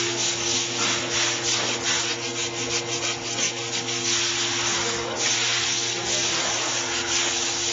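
Wire brush scrubbing the pad-slide grooves of a steel brake caliper bracket: continuous scratchy scraping of bristles on metal, over a low steady hum.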